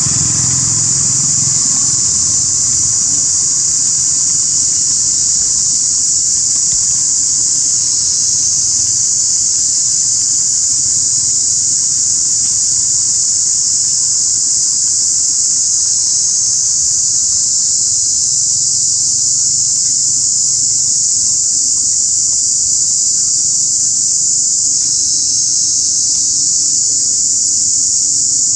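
A steady, loud, high-pitched insect chorus that drones on without a break, with a weaker low rumble underneath that is strongest at the start.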